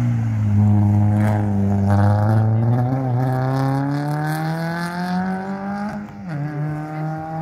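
Rally car engine at high revs on a gravel stage, its pitch climbing steadily for several seconds, then dropping sharply about six seconds in at a gear change and holding steady after.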